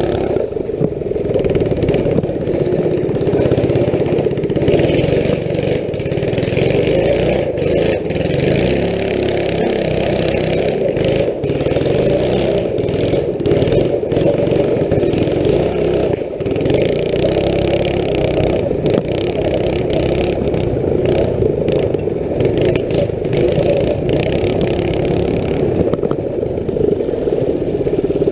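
Small engine running continuously under way as the vehicle is ridden, its note varying a little with throttle.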